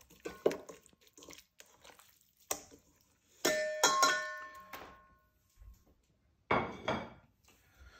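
Hand squishing and turning steak in marinade in a stainless steel mixing bowl, with soft wet squelches. About three and a half seconds in, the bowl is knocked and rings with a clear metallic ring that fades over about a second. A short wet rubbing sound follows near the end.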